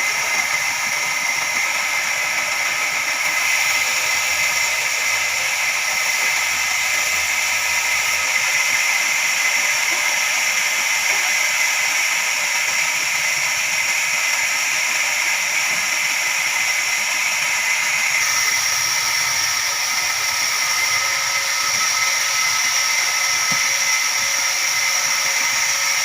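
Large horizontal band sawmill running, a steady high-pitched whine over a hiss; the whine shifts in pitch about eighteen seconds in.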